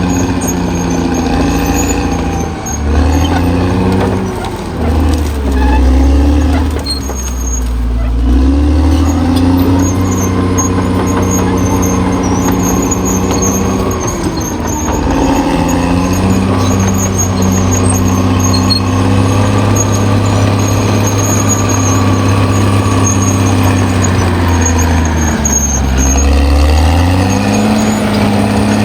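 Caterpillar D6R XL bulldozer's diesel engine running hard, its pitch sagging and recovering several times as the load on the machine comes and goes.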